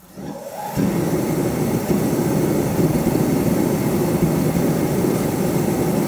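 Sealey forced-air paraffin/diesel space heater starting up after being switched on: its fan motor spins up within the first second, then the heater runs with a loud, steady rushing drone.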